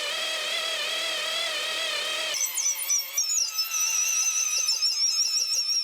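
Electric drill running a 14mm wood bit into seasoned oak, a steady whine whose pitch wavers under load. About two and a half seconds in the sound shifts to a thinner, higher whine with scratchy high chirps.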